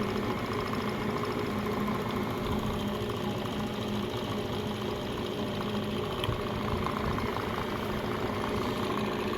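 Van Norman Model 204 brake lathe running under power, its motor, belts and gearbox giving a steady mechanical hum with the feed set to zero speed.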